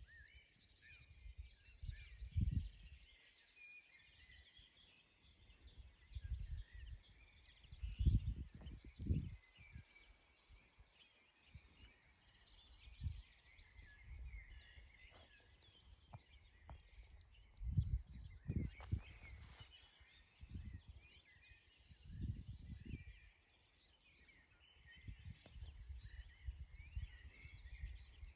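Small birds chirping and calling, many short overlapping notes, with irregular low rumbling underneath in several stretches.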